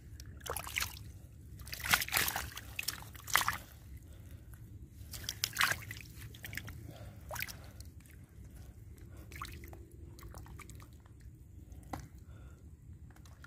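Hands and thrashing climbing perch splashing and sloshing in a shallow muddy puddle, in irregular bursts that are loudest in the first few seconds and sparser later.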